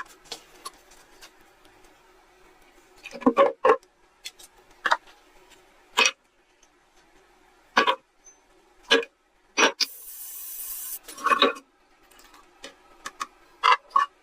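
Scattered clinks and knocks of metal parts being handled and worked by hand, irregular and a second or so apart, with a short hissing burst about ten seconds in.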